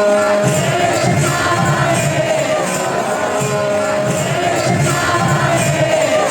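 Devotional kirtan music: voices singing held notes over a steady beat of drum and jingling hand cymbals.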